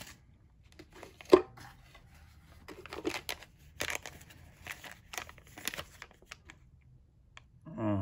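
Thin clear plastic bag crinkling and rustling in short bursts as a folding knife is slid out of it, with one sharp click about a second in.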